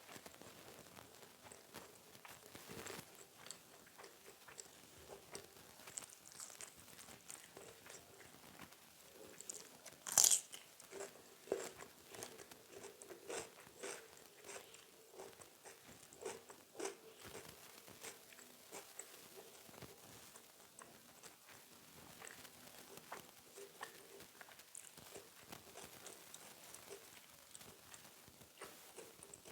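Close-miked eating: mouthfuls of a jengkol balado meal with corn fritters and raw vegetables being bitten and chewed as small wet clicks. About ten seconds in there is one loud crunchy bite, followed by several seconds of crunching chews.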